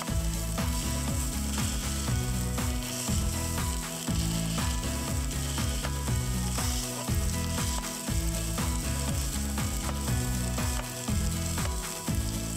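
Rice and chopped green onions sizzling in oil in a nonstick frying pan as a ladle stirs them, under background music with a steady bass line.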